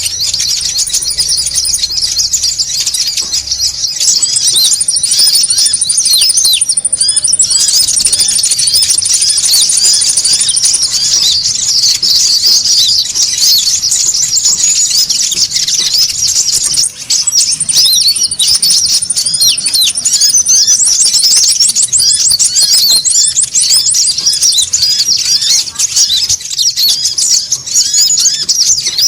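A noisy flock of konin birds, the metallic and green kinds, calling over one another in dense, high, rapid chirps. Stretches of a fast, even high trill run over the top. This is a lure recording meant to draw wild birds in.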